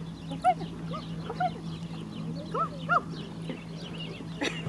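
Short animal calls, each rising and falling in pitch, about five in the first three seconds, over faint chirping of small birds; a sharp click near the end.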